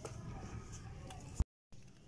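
Faint room noise, broken about one and a half seconds in by a sharp click and a moment of dead silence where the recording is cut, then fainter room noise.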